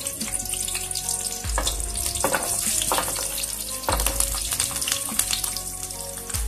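Whole shallots and garlic cloves frying in hot cooking oil: a steady sizzle, with sharper spits several times as more cloves drop into the oil.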